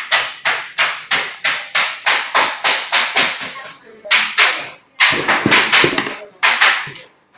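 Hand metal snips cutting through thin sheet metal, a crisp snip about three times a second, with a short pause about four seconds in before the cutting carries on.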